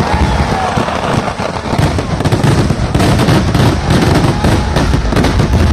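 Vedikkettu fireworks barrage: dense firecrackers and shells going off in rapid succession, a continuous crackle of many sharp bangs that grows denser about two seconds in.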